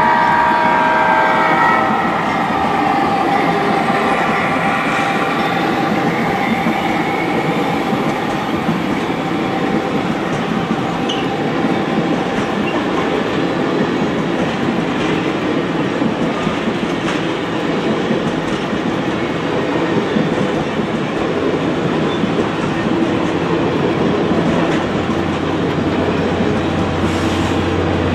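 HO scale model diesel locomotive pulling a long string of passenger cars. A multi-tone horn sounds and cuts off about two seconds in, then comes the continuous running noise of the train rolling past, with faint clicks from the wheels on the track.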